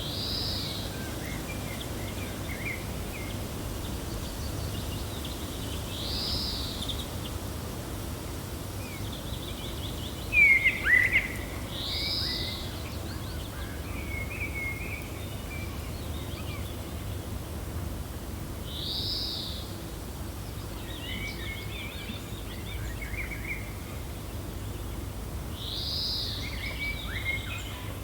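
Birds chirping over a steady low wind rumble. One short call recurs about every six to seven seconds, with scattered softer chirps between, and a louder sharp chirp sweeping downward about ten seconds in.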